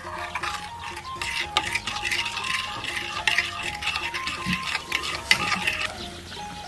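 A metal spoon stirring a sauce in a glazed ceramic bowl, scraping and clinking against the bowl's sides and bottom, stopping near the end.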